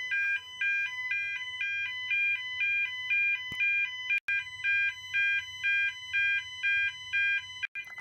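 Fire alarm sounders going off, set off by a smoke detector triggered with test spray. The sound is an alternating two-tone pattern switching about twice a second over a steady high tone. A couple of sharp clicks come about halfway through.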